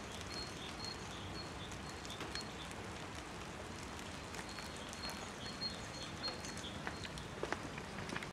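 Faint outdoor ambience: a steady soft hiss of light rain, with a small bird's high, short chirp repeating about two to three times a second for the first five seconds or so, and a few faint ticks.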